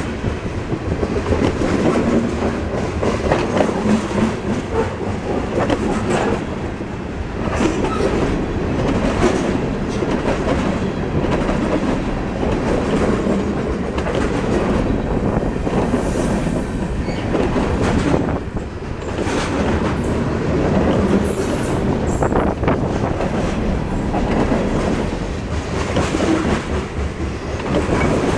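Freight cars of a passing CSX manifest train rolling by, steel wheels clicking and clacking over the rail joints. A faint high wheel squeal comes in about three-quarters of the way through.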